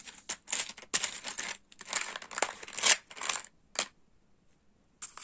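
Small metal charms and beads clicking and rattling against each other and the plastic compartments of an organiser box as a hand rummages through them. The rattling is irregular and stops about four seconds in.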